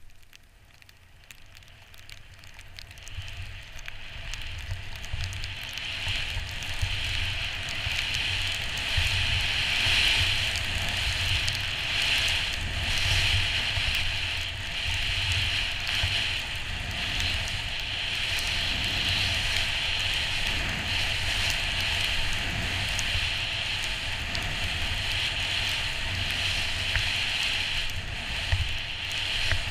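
Skis sliding over snow in a steady hissing scrape, with wind buffeting the microphone. It builds up over the first several seconds as speed picks up, then holds.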